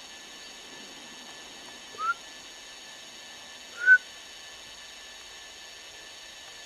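Two short rising whistles about two seconds apart, the second louder, over a steady background hiss.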